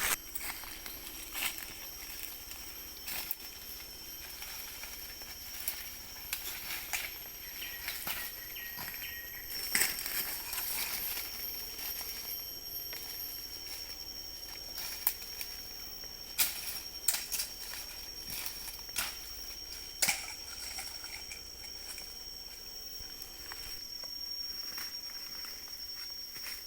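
Forest ambience: a steady high-pitched insect drone runs throughout, with scattered sharp crackles and snaps from movement through dry leaf litter and twigs.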